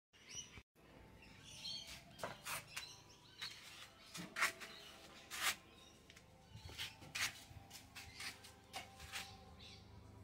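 Faint ambient background of birds chirping, with scattered short clicks and ticks.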